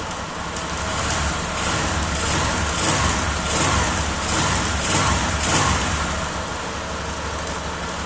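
A 2003 Honda CG Titan's single-cylinder four-stroke engine running after years of standing, blipped lightly in a string of short revs before settling back. It is then switched off abruptly right at the end. The engine has a noise that the owner cannot yet place.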